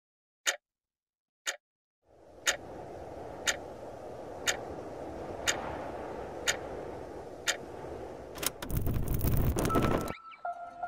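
Clock ticking once a second, first alone and then over a low steady noise; near the end a loud burst of rapid clicking and noise lasts about a second and a half, and music with bell-like mallet notes starts just before the end.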